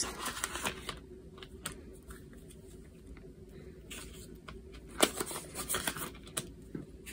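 Paper money and a clear plastic cash envelope rustling and crinkling as they are handled, with scattered short crinkles, the loudest a little after five seconds in.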